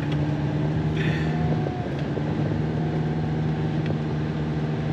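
Volkswagen Grand California camper van's diesel engine pulling under load up a steep grade, a steady drone heard from inside the cab.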